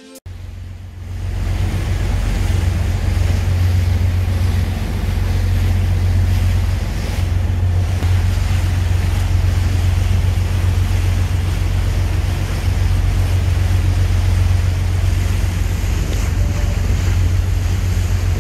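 Wind buffeting the microphone in a heavy, steady rumble over rushing, splashing water on open choppy water. It comes in about a second in and holds steady after that.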